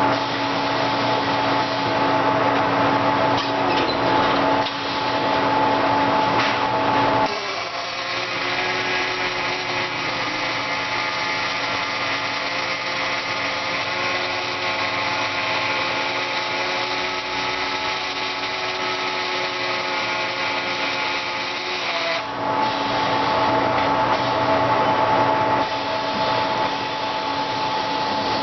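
Automated welding machinery running with a steady mechanical hum and hiss. About seven seconds in the hum shifts to a different pitch with more hiss, and it shifts back about twenty-two seconds in.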